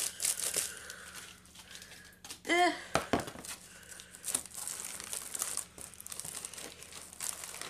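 A bubble mailer crinkling and tearing as it is cut and pulled open by hand, in a string of short crackles, with a low knock about three seconds in.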